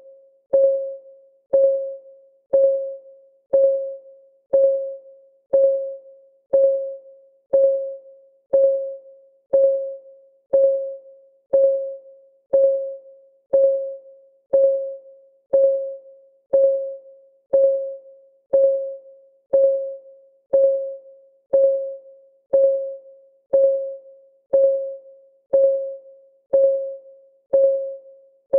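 Countdown timer's clock-ticking sound: an even tick once a second, each a short stroke on a single mid pitch that rings briefly and fades before the next.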